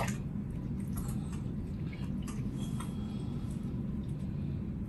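Soup being stirred with a spatula in a large stainless-steel stockpot: soft squishing with scattered light scrapes and clicks against the pot, over a steady low hum.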